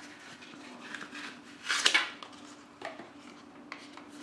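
Handling noise from a leather case and a small metal-edged portable DAC being picked up and fitted together over a glass tabletop: light clicks and knocks, with a brief louder scrape about two seconds in. A faint steady hum sits underneath.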